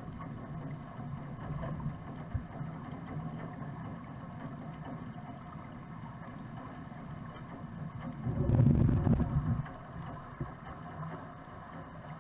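Muffled underwater ambience of a swimming pool, heard with the microphone submerged: a steady low hum and water noise. About eight and a half seconds in, a louder rush of water swells for about a second and then dies away.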